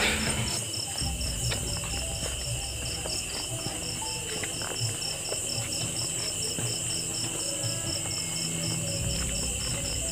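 Night insects, crickets among them, chirping steadily in fields: one calls in even pulses about four times a second over a continuous high trill. Soft footsteps on a dirt path.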